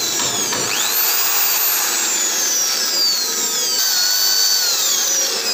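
Power drill boring into a rusty metal plate with a cylindrical cutting bit. It makes a steady grinding noise with high squeals that slide down and up in pitch as the bit cuts.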